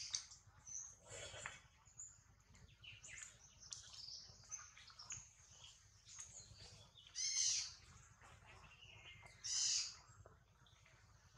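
High-pitched animal chirps and squeaks, scattered and faint, with two louder short calls about seven and nine and a half seconds in.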